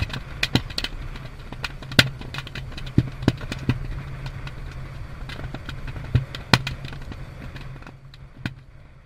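Ammunition cooking off in a burning pile of 5.56 mm and 20 mm cartridges: irregular sharp pops and cracks, several much louder than the rest, thinning out toward the end, over a steady low rumble.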